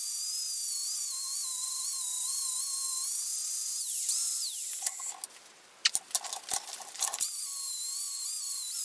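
Metabo angle grinder with a flap disc grinding the proud stub of a steel trailer-hitch ball flush, its motor whine wavering under load. About four seconds in it is let off and winds down with falling pitch. A few clicks and knocks follow, and the grinder starts up again a little after seven seconds.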